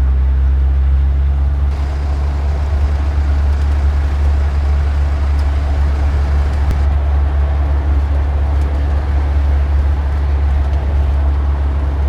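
A car driving, with a steady low engine and road rumble throughout.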